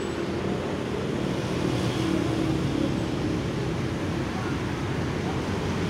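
Steady low rumble of a tour coach idling at the curb, mixed with street noise and faint voices of people around it.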